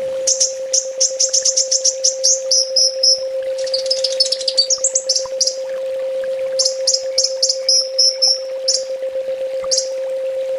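Kolibri ninja sunbird song: rapid series of high, thin chirps in quick trilled phrases, several phrases broken by short pauses. A steady low hum runs underneath.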